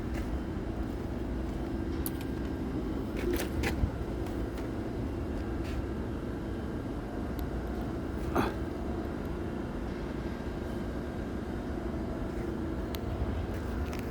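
A machine running with a steady low hum, broken by a few sharp knocks, the loudest about eight seconds in.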